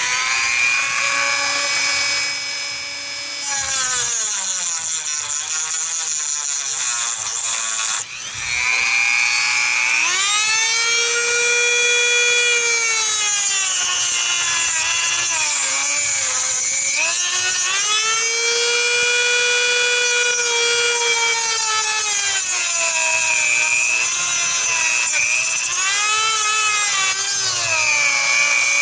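Small electric power tool cutting into the plastic valve cover to free the crankcase ventilation valve. Its motor whine sags in pitch and recovers again and again as the cut loads it.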